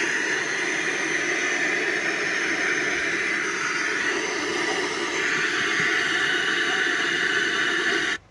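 Portable Bluetooth speaker playing loudly, giving a dense, hissing, noisy sound that cuts off abruptly about eight seconds in.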